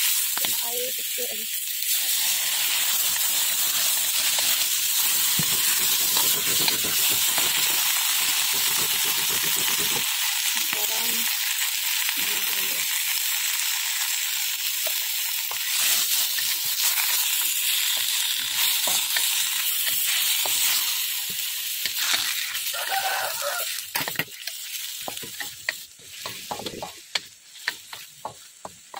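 Leafy greens and garlic sizzling in oil in a stainless steel wok, stirred with a wooden spatula. The steady sizzle eases off near the end, leaving the spatula's scrapes and taps against the wok.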